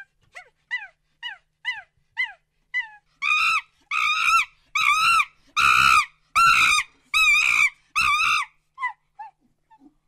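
Monkey calling: short falling squeaks about twice a second, then about three seconds in a run of seven louder, longer, harsh calls, before the calls shrink back to a few short squeaks near the end.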